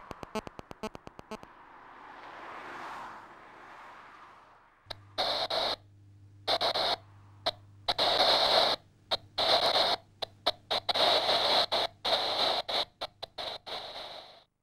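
Radio static: loud bursts of hiss that switch on and off abruptly and irregularly, with a steady low hum under them, after a run of rapid clicks fades out at the start.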